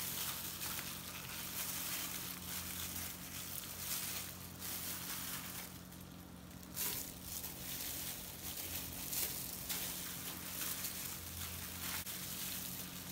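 Hands pulling part-cooked chicken apart and off the bone, making irregular soft tearing and crackling noises over a low steady hum.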